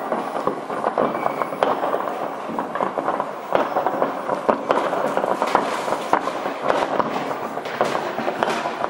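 Many fireworks, firecrackers and rockets going off at once, making a dense, continuous crackle of bangs with louder single bangs standing out throughout.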